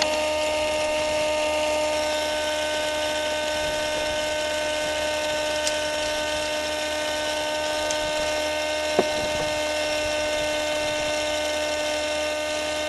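Vacuum cleaner motor running with a steady whine, used to pull a draught through the charcoal fire of a model steam boat's boiler. A few light clicks sound over it, the sharpest about nine seconds in.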